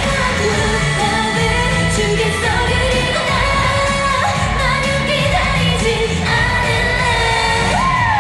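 Live K-pop performance: a girl group singing a pop song into handheld microphones over its backing music, with a steady beat and sung melody lines that slide between notes.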